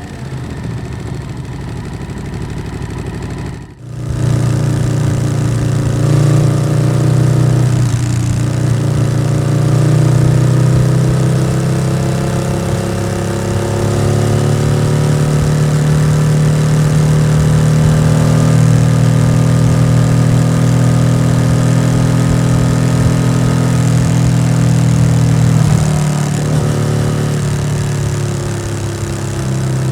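Yamaha XSR700's parallel-twin engine through an SC-Project aftermarket exhaust, running steadily with its pitch slowly rising and easing as the throttle changes. The sound drops out briefly about four seconds in.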